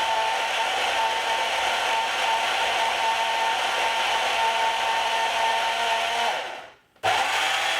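Electric blender motor running steadily with a whine, churning frozen fruit and ice into a thick smoothie. It winds down and stops about six and a half seconds in, then starts again abruptly just before the end.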